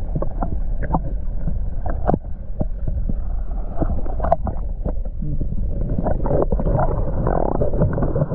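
Muffled sound of water moving around a submerged camera: a continuous low rumble with nothing bright above it, broken by scattered clicks and knocks.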